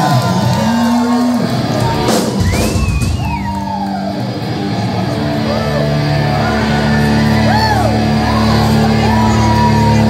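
Live rock band opening a song: electric guitar notes gliding up and down in pitch, then steady held low notes from about halfway, with crowd shouting. A single sharp hit sounds about two seconds in.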